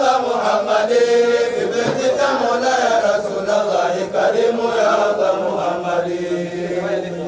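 Voices chanting an Arabic Islamic devotional chant over a steady low drone.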